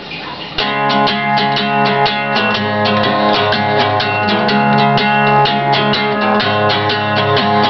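Acoustic guitar strummed in a steady rhythm of chords, starting about half a second in.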